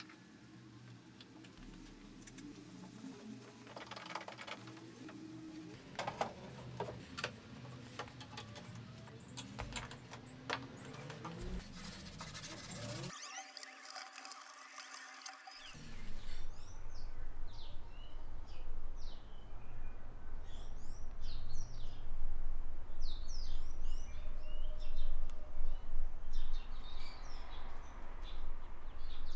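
Faint scattered clicks and knocks of hands working on wood, then from about halfway small birds chirping again and again over a steady low outdoor rumble.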